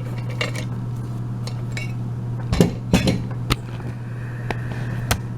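Small metal clicks and clinks of lock-picking tools and the padlock being handled, with a few sharper knocks about two and a half to three and a half seconds in. A steady low hum runs underneath.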